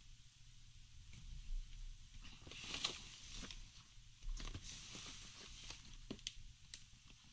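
Faint handling noise: scattered light clicks and taps with a short rustle about three seconds in and another a little past four seconds.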